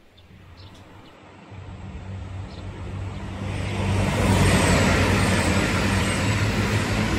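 JR Hokkaido KiHa 261 series 1000 diesel limited express train approaching and passing: the hum of its diesel engines and the rolling noise swell steadily over the first four seconds, then stay loud.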